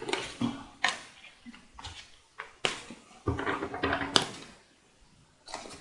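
A few sharp slaps and clicks of objects put down on a table, spaced a second or more apart, with a brief low pitched sound near the middle.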